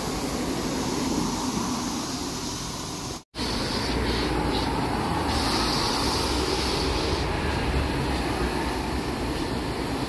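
Steady rushing machine noise from a hand car wash at work, with a low rumble underneath. It cuts out for an instant about a third of the way in.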